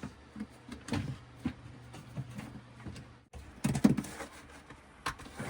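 Knocks and scrapes of a bathroom vent fan housing being slid and pushed into place in the ceiling, with the loudest cluster of knocks a little past halfway. A low steady hum runs underneath and cuts off about three seconds in.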